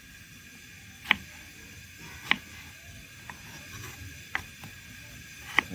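Kitchen knife cutting through raw potato and knocking down onto a wooden cutting board: about five sharp knocks, roughly a second apart.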